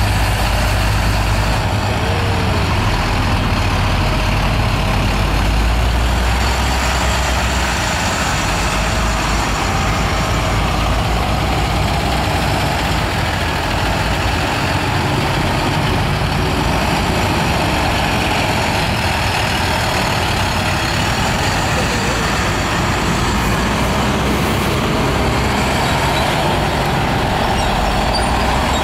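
Several diesel tow trucks, flatbed car carriers and a heavy wrecker, driving slowly past one after another, their engines running steadily with a continuous low rumble.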